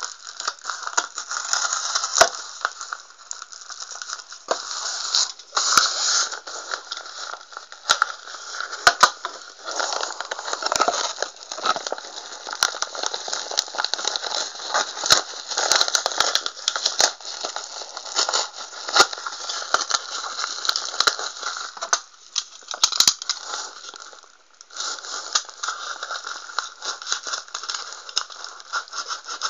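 Plastic courier mailer bag crinkling and rustling as hands work at opening it, with many sharp clicks and crackles and a brief pause near the end.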